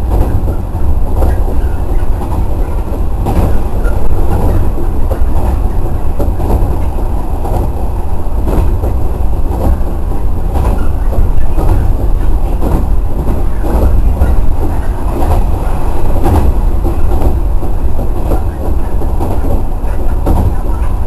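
JR 113 series electric train running along the line, heard from just behind the cab: a steady low rumble with irregular sharp clicks of the wheels over rail joints.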